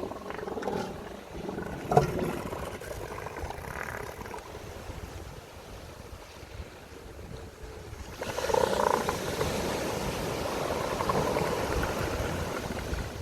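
Elephant seals making guttural, rasping calls: a few short ones in the first seconds, then a long, louder one starting about eight seconds in.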